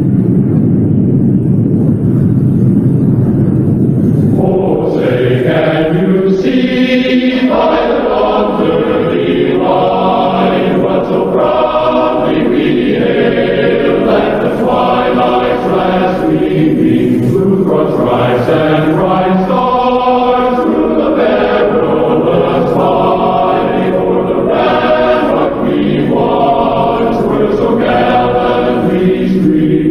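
A low rumble dies away over the first four seconds, then a choir sings in slow, sustained phrases.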